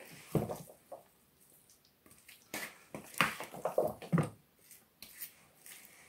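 A spoon stirring mayonnaise into raw meat and onion rings in a plastic bowl: irregular wet squelches and soft scrapes, busiest in the middle.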